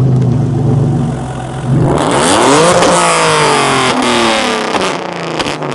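2014 Hyundai Genesis Coupe's 3.8 V6 through headers and a 2.5-inch straight-piped exhaust, running loud and steady, then revving up sharply about two seconds in as the car pulls away. The revs then fall off, with a few crackles from the exhaust near the end.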